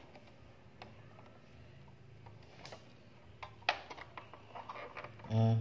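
A few faint, scattered clicks and taps from hands handling a small plastic mini sewing machine and the fabric under its presser foot, over a low steady hum; the machine is not running. A short vocal sound comes near the end.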